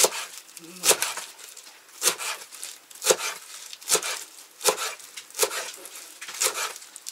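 Large kitchen knife chopping fresh green herbs on a wooden cutting board: sharp knocks of the blade on the board, roughly one a second.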